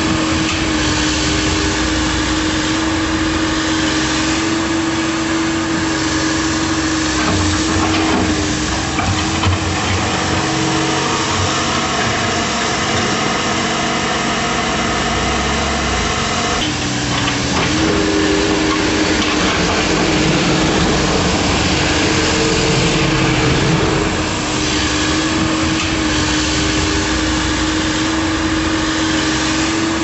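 A small motor running steadily with a constant whining hum, which breaks off briefly about 17 seconds in and then resumes.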